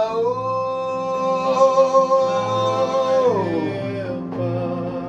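A male worship singer holds a long wordless note over sustained keyboard chords. About three seconds in, the note slides down, and a new held note follows.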